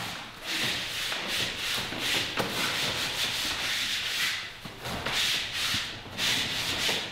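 A large painted canvas unrolling off a cardboard tube as it is pushed across a concrete floor: a rough rubbing, scraping noise that comes in several long pushes.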